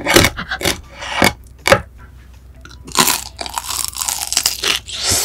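Close-miked crunching and chewing as someone bites into crispy fried food. Sharp, crackly crunches come at the start, again about a second in, and in a thicker run from about three seconds in.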